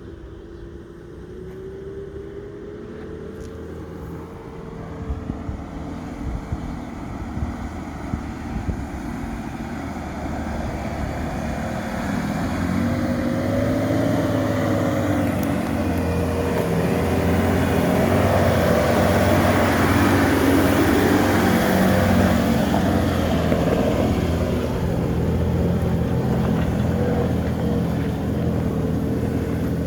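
A 4WD's engine running and growing steadily louder over about twenty seconds as the vehicle draws nearer, its engine note shifting in pitch, then easing off slightly near the end.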